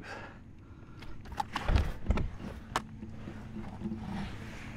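Scattered dull knocks and clicks of a large freshwater drum being handled aboard a kayak, with a couple of heavier thumps about two seconds in.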